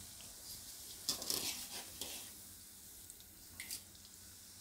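Nylon sev (fine gram-flour noodles) deep-frying in hot oil in a wok: a faint, steady sizzle with a few brief louder spurts about a second in and again near the end.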